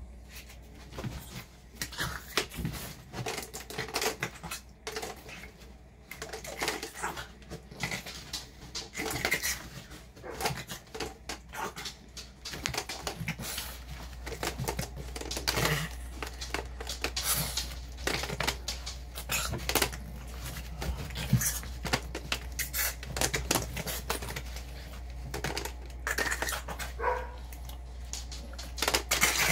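A small brindle dog angrily growling and snapping at a Bug-A-Salt salt gun held at its face, with many irregular sharp clicks and snaps.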